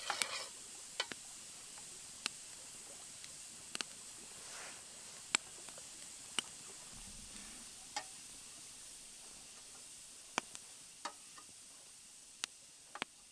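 Wood campfire of birch logs crackling: sharp single pops about every second or two over a soft hiss, slowly fading near the end.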